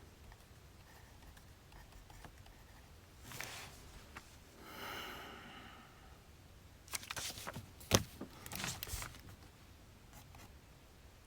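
Desk and stationery handling sounds: a soft rustle about three seconds in, a brief high squeak, then a flurry of clicks and knocks about seven to nine seconds in, the loudest a single sharp knock.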